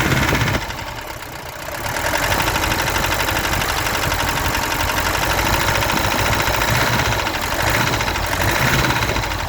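Mercedes-Benz W123 200D four-cylinder diesel engine idling with a constant knocking, briefly quieter for about a second and a half near the start. The owner does not know its cause and suspects glow plugs or worn cam, crankshaft or rod bearings.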